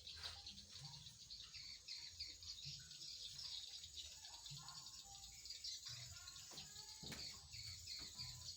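Faint birds chirping, with scattered short calls over a low background hum.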